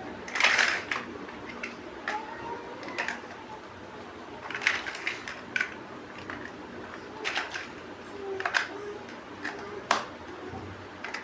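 Plastic building bricks clicking and clattering as they are handled and pressed together: irregular sharp clicks, the loudest cluster about half a second in.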